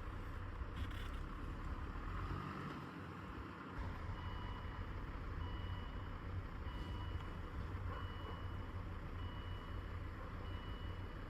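A vehicle running with a low rumble. From about four seconds in, a high warning beep repeats about every second and a quarter, six times, typical of a vehicle reversing.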